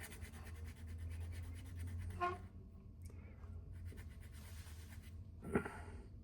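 A very small hand file scraping rough casting off a small cast signpost, with quick short strokes for about two seconds and then fainter rubbing. A single light knock comes near the end.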